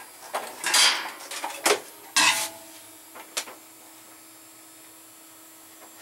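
A clamp work light with a metal reflector being moved and repositioned: a scraping rustle, then two sharp knocks about a second apart, followed by a faint steady hum.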